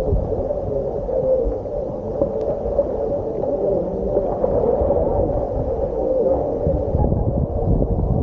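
Steady low drone of the boat's engine, a continuous hum without breaks.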